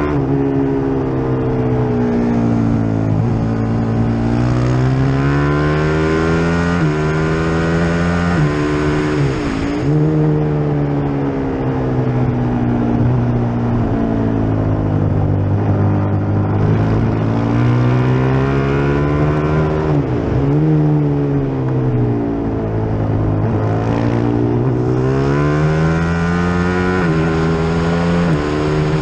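Onboard sound of the FR450GP's single-cylinder racing engine at race pace, climbing in pitch through the gears with several sudden drops at the upshifts, and falling away a few times as it slows for corners.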